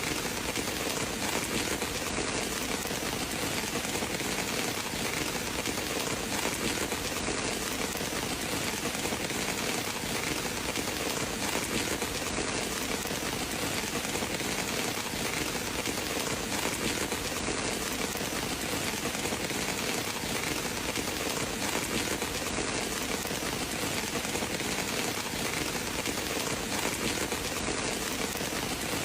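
Steady rain falling, an even hiss with no change in loudness.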